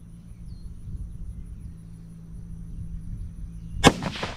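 A single rifle shot from a Savage 110 bolt-action rifle in .204 Ruger: one sharp crack near the end with a short echo trailing off.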